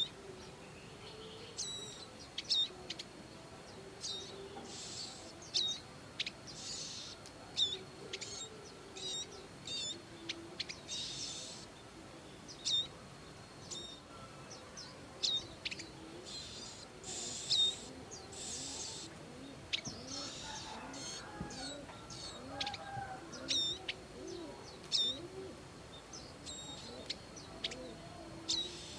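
Prinias calling: many short, sharp chirps mixed with short buzzy notes, repeated irregularly throughout, over fainter lower-pitched bird calls.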